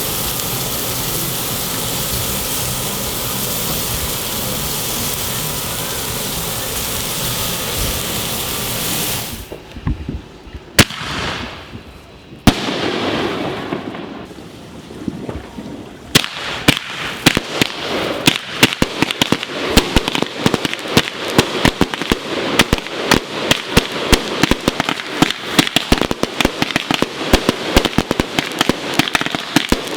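A steady hiss, then a few sharp firework bangs, then from about halfway through a long, rapid string of firecracker pops and cracks.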